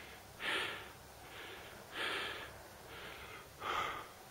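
A hiker breathing hard close to the microphone: three louder breaths about a second and a half apart, with softer breaths between them.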